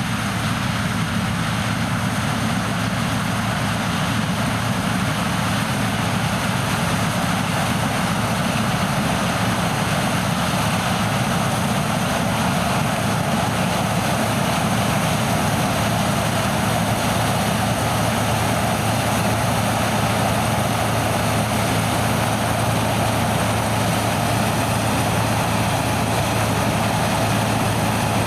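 Heavy farm machinery's diesel engine running steadily under load, with a constant low hum; a higher whir grows somewhat louder about halfway through.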